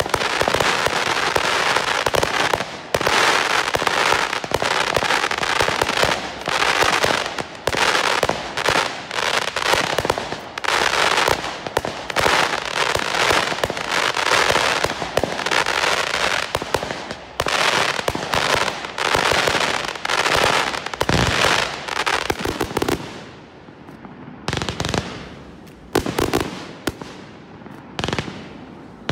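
Fireworks display: a dense barrage of shells and crackling stars going off in rapid succession, a near-continuous run of bangs and crackle that thins to separate bursts with short gaps in the last several seconds.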